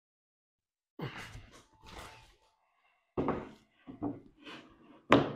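Footsteps and a few knocks and thuds, irregularly spaced about a second apart, the loudest just before the end.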